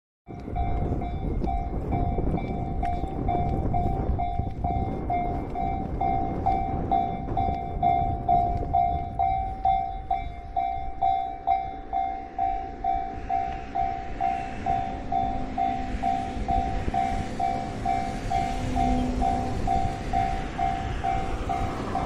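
Japanese level-crossing warning bell ringing in steady repeated pulses, about two a second. From about halfway through, the rising noise of an approaching train joins it.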